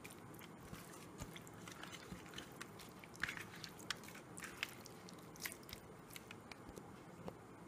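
Hands rubbing a wet spice paste over whole sardines in a steel plate: soft, irregular squelching and clicking, loudest a little past the middle.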